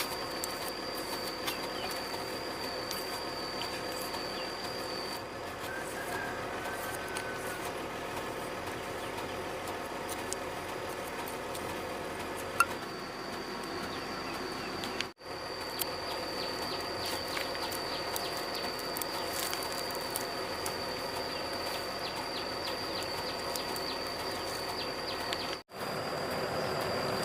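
Hydraulic excavator's diesel engine running steadily as it works, with a constant high thin whine on top; the sound drops out for an instant twice.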